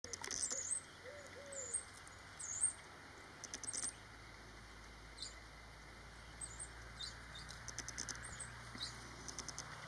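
Wild birds singing faintly: repeated high, thin chirps and short rapid ticking trills, with two or three low cooing notes in the first two seconds.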